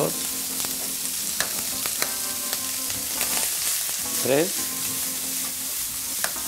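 Bacon lardons sizzling steadily as they fry in a pan with a little oil, with a few sharp clicks and taps of eggs being cracked on a glass bowl; the loudest crack comes about four seconds in.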